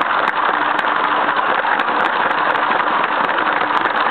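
LEGO train's small electric motor and plastic wheels running along the track, heard from on board: a steady, loud whirring rattle with scattered small clicks.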